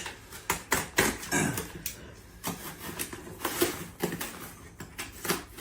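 A large cardboard gift box being handled, with scattered knocks, scrapes and rustles of cardboard.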